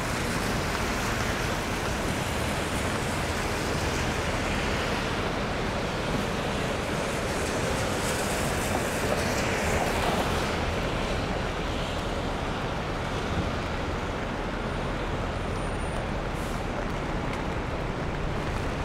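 Steady roar of city street traffic on a busy avenue: an even, continuous rush of passing vehicles.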